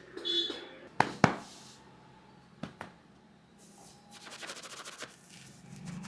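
Head massage sounds: two loud sharp snaps about a quarter second apart, two fainter ones shortly after, then a fast run of light tapping and rubbing from the barber's hands.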